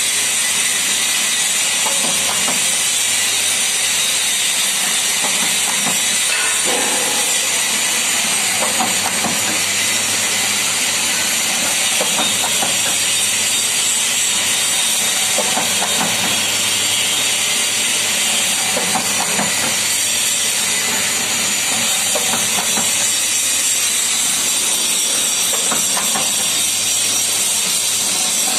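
Dona-pattal paper plate making machine running: a loud, steady hiss with faint, irregular knocks from its press heads.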